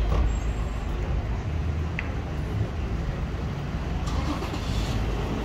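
Street traffic: a motor vehicle's engine running steadily close by, a low rumble with road noise, and a rise in hiss about four seconds in as traffic passes.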